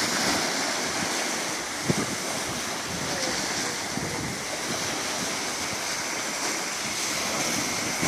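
Sea waves washing and breaking on a beach, a steady surf noise, with one sharp knock about two seconds in.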